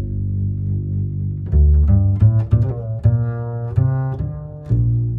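Background music: a low-pitched melody of separate notes, some short and some held, each starting sharply and changing about every half second.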